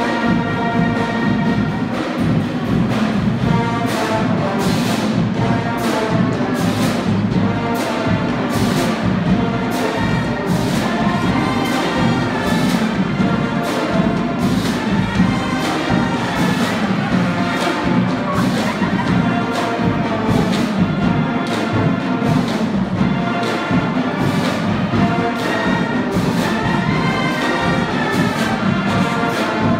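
High school marching band playing while marching: brass and woodwinds carry a tune over drums that keep a steady beat of about two strokes a second.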